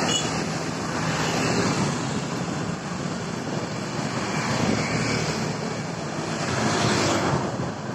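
A steady rush of wind on the microphone and street traffic with passing motorbikes, heard from a moving bicycle.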